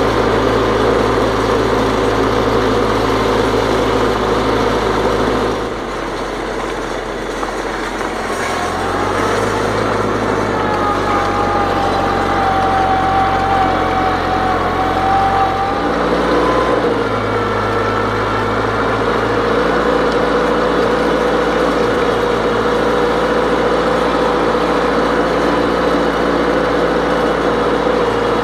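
1955 Farmall Cub's four-cylinder flathead engine running steadily as the tractor pulls a drag harrow over gravel. The sound drops a little about six seconds in and builds again; in the middle a thin higher whine rises and holds for several seconds.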